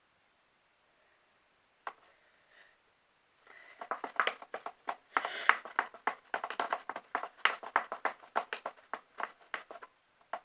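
Sticky homemade PVA-glue slime being stirred and pressed with a spoon in a bowl: a single click about two seconds in, then from about three and a half seconds a quick, irregular run of wet clicks and squelches.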